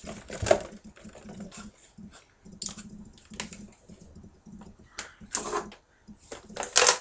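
Irregular clicks and rustling from things being handled at a desk, with louder knocks about half a second in and near the end.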